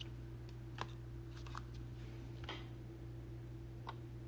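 Trading cards being handled on a stack: a handful of faint, light clicks and rustles, spread out over a steady low hum.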